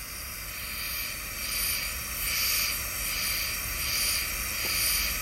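A soldering torch's fine flame hissing steadily while it heats a dental bridge's solder joint. The hiss swells and fades about once a second.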